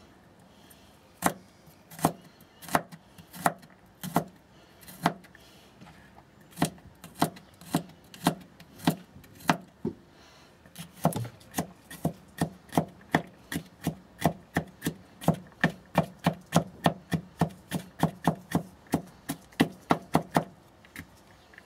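Kitchen knife chopping garlic cloves on a cutting board: separate knocks a little under a second apart at first, then from about halfway a quicker, steady run of roughly three chops a second that stops shortly before the end.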